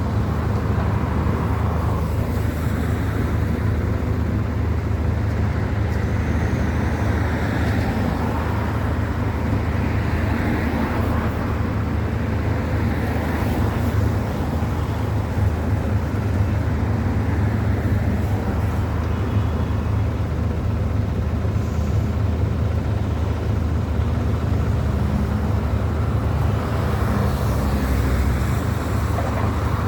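A steady low engine hum with street traffic noise over it.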